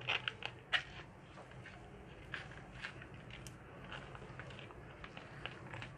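Faint, scattered soft clicks and taps of hands pressing and rolling a sticky chocolate-and-cashew mixture into a log on a plastic cutting board, a few sharper ticks in the first second.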